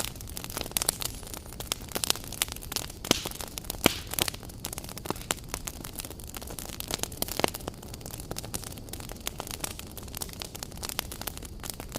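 Wood campfire crackling: irregular sharp pops and snaps, a few louder than the rest, over a steady low hiss.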